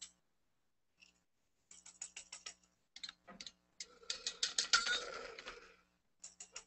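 Hand-held toy noisemakers being tried out, making short trains of rapid clicking, with a longer, louder rattle about four seconds in.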